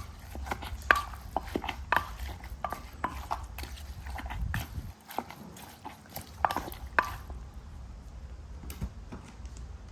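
Utensils knocking and scraping in a mortar as a pounded salad is mixed: irregular, ringing clinks, two or three a second, that thin out after about seven seconds.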